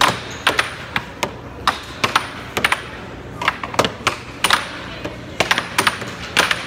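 Air hockey being played: mallets striking the plastic puck and the puck clacking off the table's rails in quick, irregular knocks, several a second, over a steady low hum.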